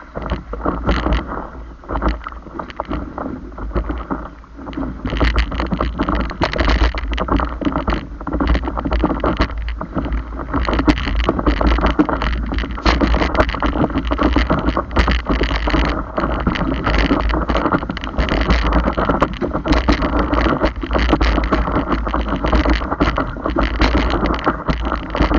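Wind buffeting the microphone over rushing, splashing whitewater, louder and rougher from about five seconds in.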